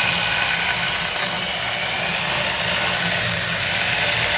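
Corded DeWalt drill running at speed, spinning a homemade brush wheel of string bristles set in epoxy against a torch-charred wooden carving, the bristles scrubbing off the black soot. A steady motor whine sits over a dense rushing noise.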